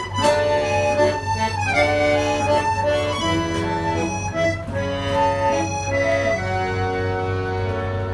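Accordion and dombra, the two-string Kazakh lute, playing a tune together: the accordion plays the melody and chords in held notes that change every fraction of a second, over the strummed dombra.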